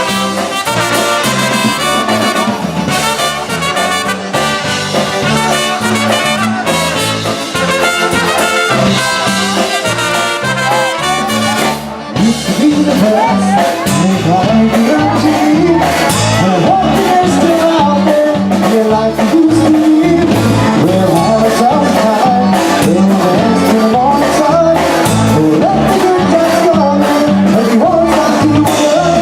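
Live polka band playing: brass (trumpet and trombone) carries the tune over a steady oom-pah bass beat, and about twelve seconds in a lead vocal comes in singing over the band.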